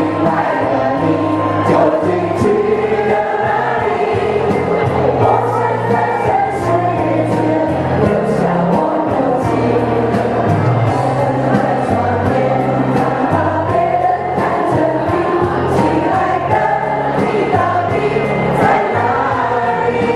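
Mixed adult choir singing together through microphones over an instrumental accompaniment with sustained bass notes and a steady beat.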